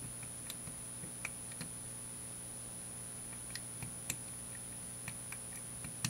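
Dial of a Master Lock combination padlock being turned with tension on the shackle while feeling for the sticking points of the combination, giving scattered faint clicks at irregular intervals. A faint steady hum runs underneath.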